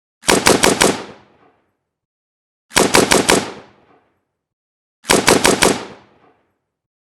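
AK-47 assault rifle firing three short bursts of about five rapid rounds each, roughly two and a half seconds apart. Each burst trails off in a brief echoing tail.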